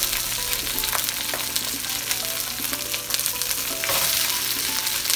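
Peas, carrots and onions sizzling in hot oil in a wok, a steady frying hiss, as cooked rice is spooned in on top.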